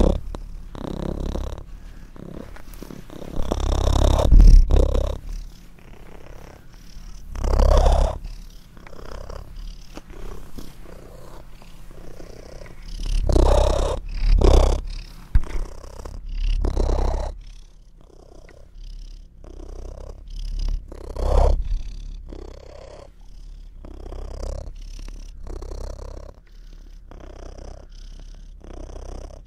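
Domestic cat purring loudly and continuously, the purr swelling and fading in slow waves every few seconds.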